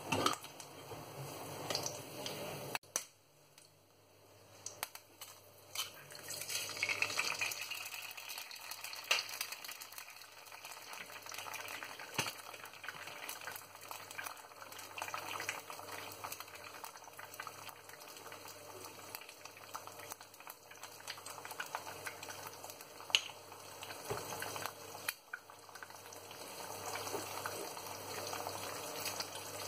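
Two eggs frying in oil in a pan: a steady crackling sizzle that grows fuller about six seconds in, with a few sharp clicks.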